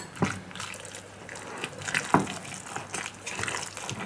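Wooden spatula stirring a wet mixture of raw ground pork, grated vegetables and tomato sauce in a glass bowl: irregular squelching, scraping strokes.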